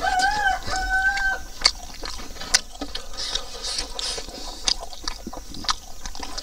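Close-up eating sounds: wet chewing and lip-smacking, with fingers working rice and pork rib meat on a wooden plate, giving many short clicks and smacks. A short wavering high tone sounds during the first second or so.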